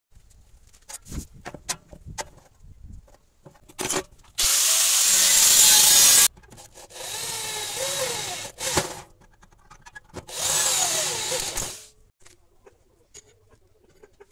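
Cordless power drill boring into sheet steel in three runs, the first the loudest, with the motor's pitch wavering as it loads up; light clicks and taps of tools being handled come before.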